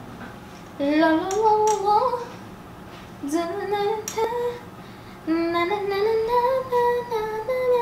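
A woman singing unaccompanied in three short phrases, her voice sliding up between held notes.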